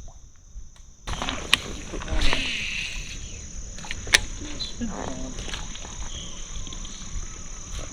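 A steady, high-pitched chorus of crickets and other insects, with a few sharp knocks, the loudest about a second and a half in and again about four seconds in.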